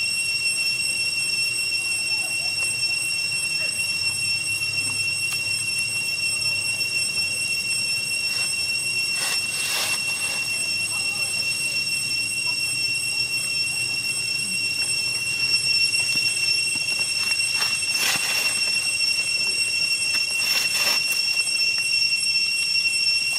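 Cicadas droning: one steady, high-pitched whine with overtones, swelling a few times in brief rushes of noise.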